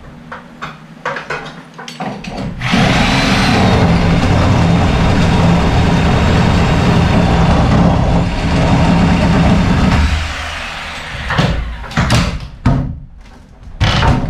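A handheld power tool runs steadily for about seven seconds, working into overhead framing lumber, then stops. A few sharp knocks follow near the end.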